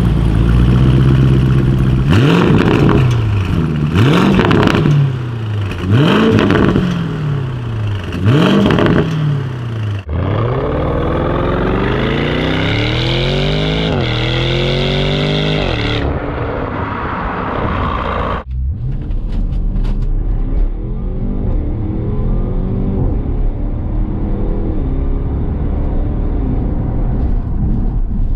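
Porsche Cayenne Turbo's twin-turbo engine through a custom-built valved exhaust in loud mode, flaps open. It is revved five times while parked, each rev rising and falling. It then accelerates hard, with the pitch climbing and dropping at each gear change. From about 18 seconds in it is heard muffled from inside the cabin, still accelerating.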